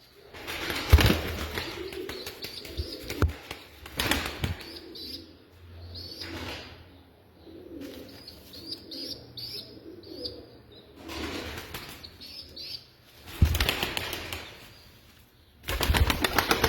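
Turkish tumbler (taklacı) pigeons flapping their wings in several loud bursts, with pigeons cooing and some short high chirps in between.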